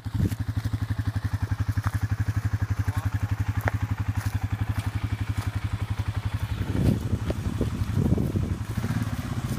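Arctic Cat ATV engine running with a steady rapid chug while the quad sits stuck in the mud. About seven seconds in it gets louder in a few rough, uneven bursts for a couple of seconds, then settles back.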